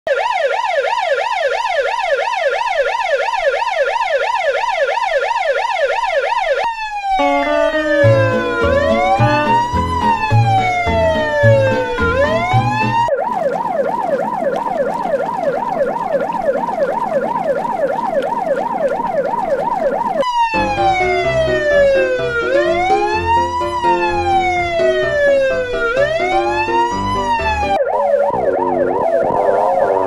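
Ambulance siren sound effect in edited variations: a plain fast yelp, then a slow rising-and-falling wail over a low repeating beat, then a fast yelp in a wash of noise (an "under water" effect), the slow wail with the beat again, and near the end a wobbling, warbled version.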